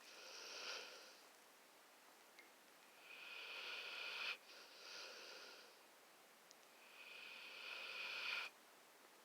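A sleeping pet snoring: three drawn-in breaths about every four seconds, each growing louder and cutting off sharply, with a softer breath out after the second.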